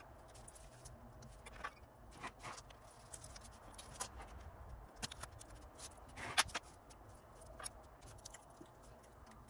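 Faint scattered clicks and light handling noises as small parts are pried off a glass front panel with a screwdriver and a thin blue plastic sheet is lifted away, with a louder cluster of clicks about six seconds in.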